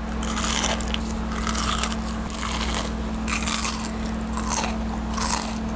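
Crispy breaded onion rings being bitten and chewed close to the microphone, a crunch about once a second, over a steady low hum.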